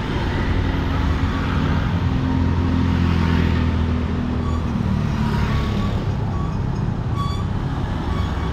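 A motor vehicle engine running close by amid street traffic noise, strongest in the middle, with a few short high tones in the second half.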